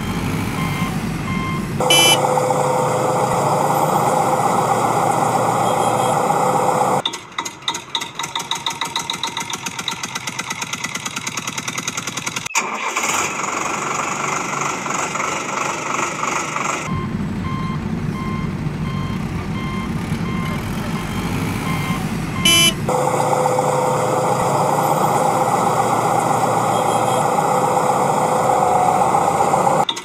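Heavy-machinery sound effects: a reversing alarm beeping, alternating with a loud running engine and the fast, steady chugging of an idling engine, with one sharp click near the middle.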